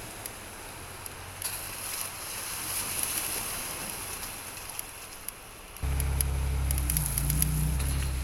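Toyota Land Cruiser SUV driving off-road: a crackling wash of tyres on dirt and gravel and splashing water, then about six seconds in a louder, steady low engine drone comes in suddenly.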